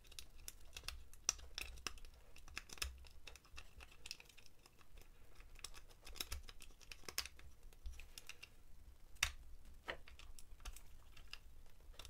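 City rake scraped rapidly in and out of a Kryptonite Discus padlock's pin-tumbler keyway under tension, giving faint, irregular small clicks and scrapes as it bounces the pins, with a few louder clicks about nine to ten seconds in.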